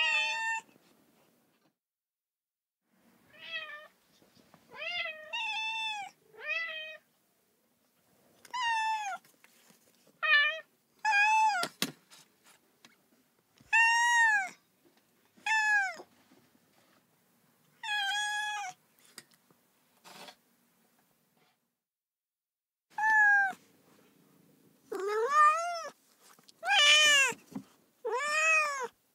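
Domestic cat meowing: a run of about fifteen separate meows, each rising then falling in pitch, with a pause in the middle and louder, longer meows near the end.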